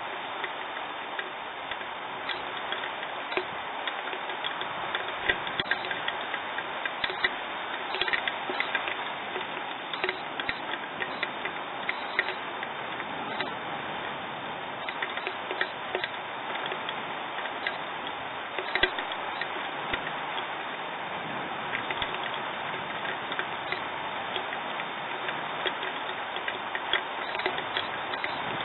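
Steady rain hiss with many irregular sharp ticks of drops striking a surface close to the microphone during a thunderstorm.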